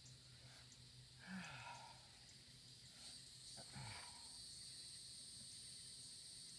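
Two short, throaty snore-like sounds from a dozing man, each falling in pitch, about a second in and again near four seconds, over a faint steady hum and a high, thin whine.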